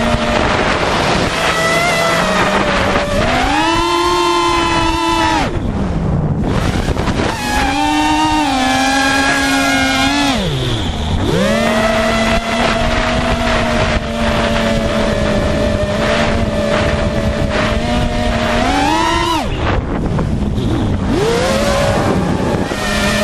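FPV quadcopter's brushless motors and propellers whining, the pitch rising and falling with the throttle and dropping steeply to a low hum about eleven seconds in before climbing again, with wind buffeting the microphone.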